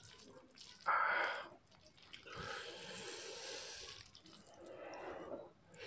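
Quiet, wet squishing of saucy noodles being stirred on a plate with a plastic fork, in a few short stretches, the loudest about a second in.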